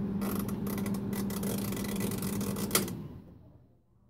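Refrigerator's freezer fan running with a steady hum while a screwdriver turns the defrost timer with a series of clicks. A sharper click comes near the end, and the hum winds down to silence as the timer switches into defrost and the fan shuts off.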